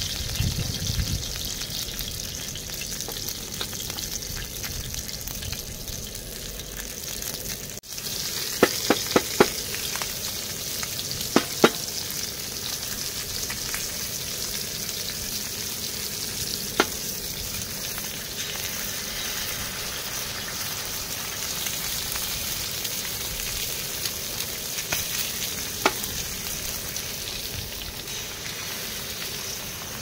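Salmon belly sizzling steadily as it fries in oil on a black griddle pan, with a few sharp clicks and pops, a cluster about nine seconds in.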